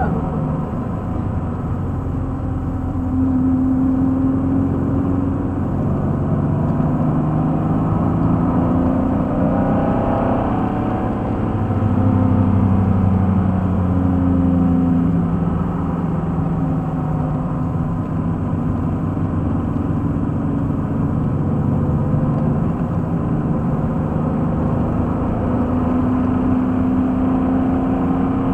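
Pontiac Fiero's mid-mounted engine heard from inside the cabin under hard driving, its note changing pitch several times as revs rise and fall through the gears, over steady road and wind noise.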